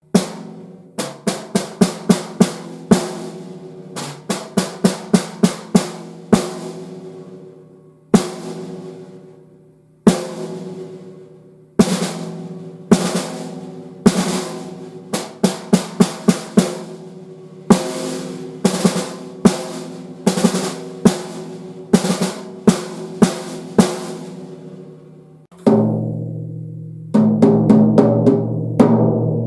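Drums of a Sonor Bop poplar-shell drum kit struck for a sound demo: single hits and quick runs of four or five strokes, each left to ring with a clear pitch, separated by short pauses. About 26 seconds in, a deeper-pitched drum comes in and the strokes turn fast and dense.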